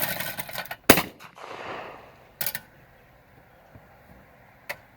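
Two shots from a Baikal .410 double-barrel shotgun at clay targets: a sharp, loud report about a second in with a fading echo after it, then a second, weaker report at about two and a half seconds. A burst of noise comes just before the first shot, and a short click comes near the end.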